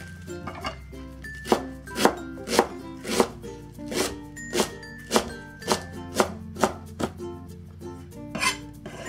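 Cleaver chopping and mincing fresh cilantro on a cutting board: a steady run of sharp knocks, about two a second.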